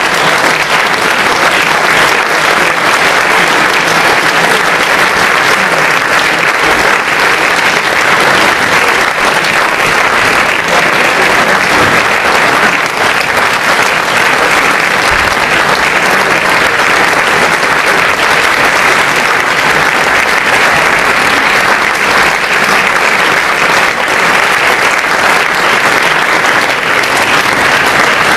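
Audience applauding steadily and loudly, a dense continuous clapping.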